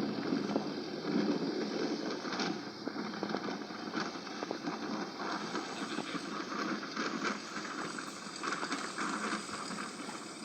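Steady running noise of a bus on the road: engine and tyre noise with no distinct events.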